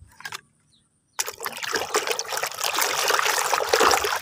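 Water pouring and splashing as a muddy toy is rinsed clean, starting suddenly about a second in and running on steadily; a few small clicks and drips come before it.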